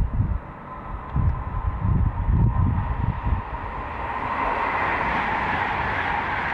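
Wind buffeting the microphone in low gusts. From about four seconds in, a passenger train passes at speed: a steady rushing of wheels on rail with a whine over it.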